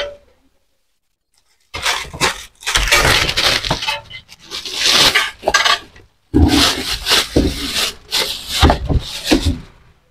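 Metal spatula and cleaver clattering and scraping as a crisp fried martabak telor is handled and chopped on a wooden board, with crunching from its fried crust. It starts a little under two seconds in.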